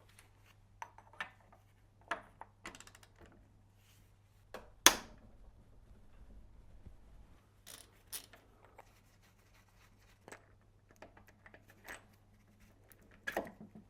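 Scattered metallic clicks and knocks of hand tools on the engine's cam phaser as its triple-square bolts are undone with the phaser counter-held, with one sharp knock about five seconds in and a cluster of clicks near the end.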